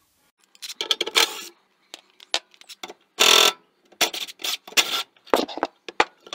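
Irregular clicks, knocks and scrapes of hands and tools on the sheet-metal fuel tank of an old Tecumseh two-stroke engine as the tank is unbolted and taken off, with one louder half-second burst of noise about three seconds in.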